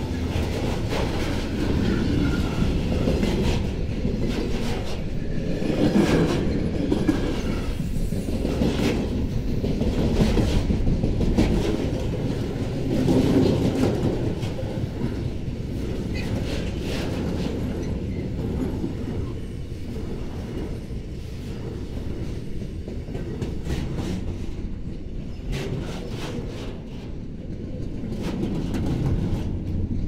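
Freight train of tank wagons passing close by: steady rumble of steel wheels on rail with rapid clacking over the rail joints. It is loudest in the first half and eases somewhat in the second half.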